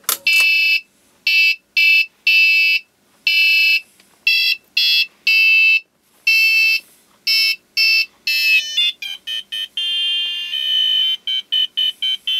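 Arduino-driven alarm clock speaker playing a tune of electronic beeps, one note after another at set pitches and lengths, quickening into a run of short notes in the last few seconds.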